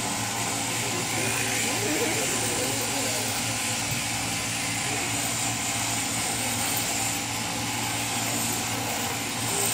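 Sheep-shearing handpiece on an overhead-drive shearing plant running steadily as it cuts through a sheep's fleece, a constant mechanical drone with a steady hum.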